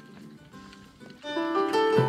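Instrumental background music: quiet at first, then swelling louder a little over a second in with several held notes.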